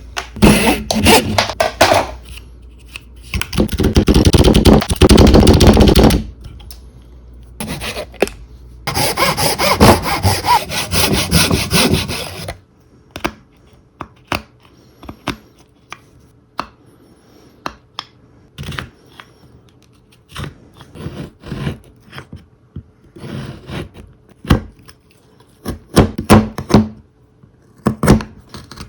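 Wood being sawn in three long stretches over the first twelve seconds or so, then scattered short scrapes and clicks of wood being worked.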